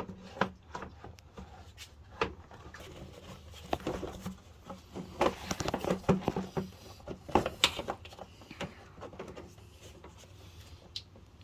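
Irregular knocks, clicks and rattles as the air intake part is handled and fitted back into place, busiest in the middle with a few sharper knocks.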